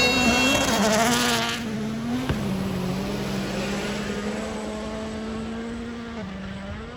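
Rally car engine at high revs passing close, loud for about the first second and a half, then fading as it drives away, leaving a steadier drone that slowly dies down.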